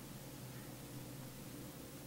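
Quiet room tone: a steady low hum under an even hiss, with no distinct handling sounds.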